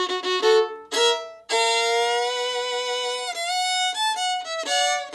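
Solo fiddle playing a bluegrass phrase in B with sliding notes, a long held note in the middle and shorter notes after it.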